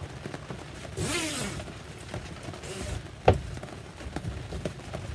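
Zipper on a canvas boat cockpit cover being pulled, in two short rasping runs about a second in and near three seconds. A sharp knock comes just after three seconds.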